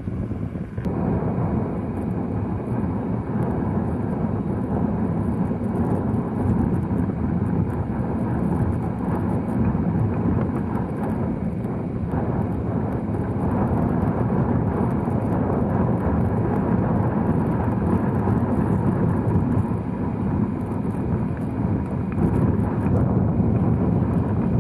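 Strong wind blowing across the microphone, a steady deep rushing noise.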